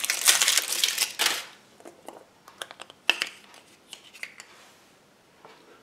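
Foil wrapper of a Kinder Surprise chocolate egg crinkling as it is peeled off. This is followed by scattered small clicks and cracks as the egg is broken open and its yellow plastic capsule handled.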